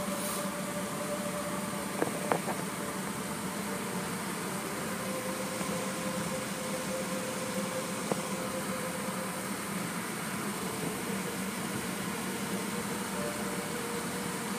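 Steady mechanical hum heard from inside a car's cabin, with a couple of faint clicks about two seconds in.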